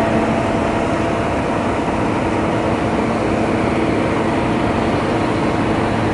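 Steady vehicle engine running, a constant drone with a few steady hum tones and no change in pitch or level.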